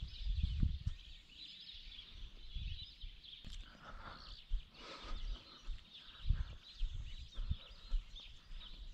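Birds chirping steadily in the background, with irregular low thumps from someone walking across grass.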